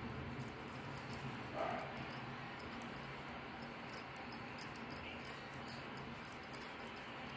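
Faint, irregular ticking of metal knitting needles as wool stitches are worked, over a low steady hum. A brief short squeak sounds about one and a half seconds in.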